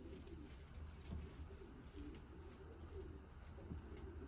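Faint, low cooing of domestic pigeons, with a few soft clicks.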